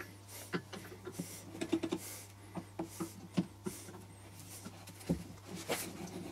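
Irregular light clicks, knocks and rubbing as a wooden bowl blank is handled on a stopped wood lathe, spun by hand while a chuck key works the four-jaw chuck, over a steady low hum.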